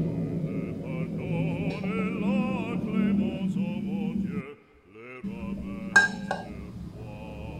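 Background music with an operatic singing voice, briefly dropping away just before two sharp clinks about six seconds in.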